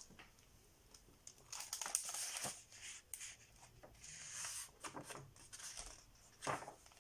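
Faint rustling of paper book pages being handled and turned, in several short bursts, the sharpest near the end.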